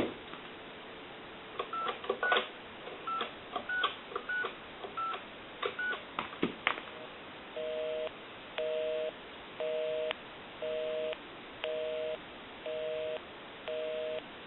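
Conair desk telephone dialing out: seven short push-button touch tones with key clicks, then a busy signal, a low two-tone beep on and off about once a second, showing that the called line is in use.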